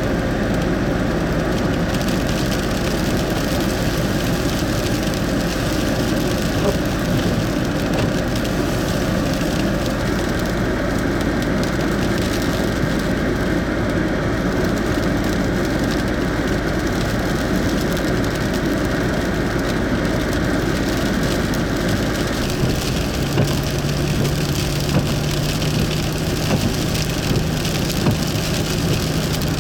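Steady noise of a car driving on a wet winter road: engine and tyre hiss. A low steady hum comes in about three-quarters of the way through.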